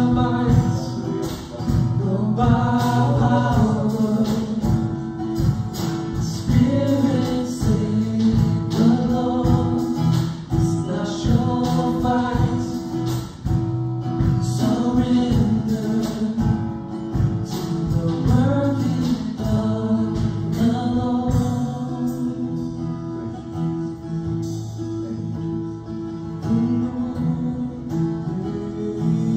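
Worship song: a voice singing over strummed acoustic guitar.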